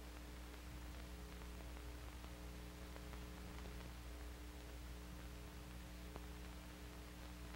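Faint steady hum and hiss of an old film soundtrack, with a few faint clicks.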